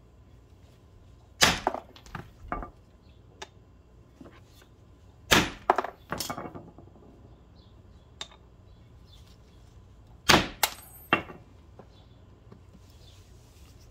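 Hammer blows knocking a new U-joint bearing cap into a driveshaft yoke: sharp metallic knocks in three bursts, about a second and a half, five seconds and ten seconds in, one with a brief ring. The cap is being driven in until the snap-ring groove shows.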